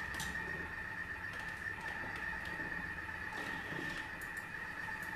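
A Thermomix food processor being set to mix: a few light plastic clicks from the lid being locked and the selector dial being turned, over a steady high electrical whine.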